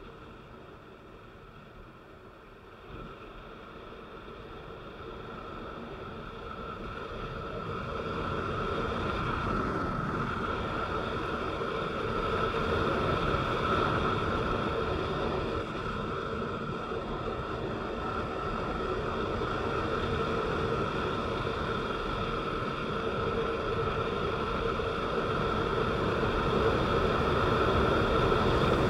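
Vehicle driving on a rain-wet road: a steady drone of engine and tyre noise with a few held tones, growing steadily louder.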